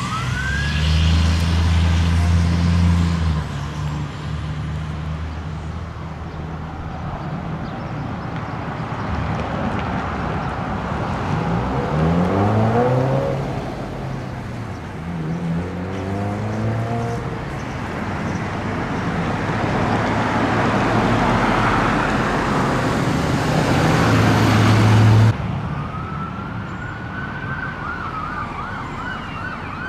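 Fire apparatus responding with sirens: heavy truck engine noise and siren tones swell as the rigs pass, loudest just before the noise cuts off suddenly about 25 seconds in. After that an electronic siren wails and then switches to a fast yelp near the end.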